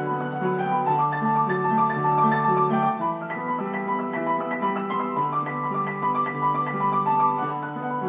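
Background piano music: a slow melody of held notes over long sustained bass notes.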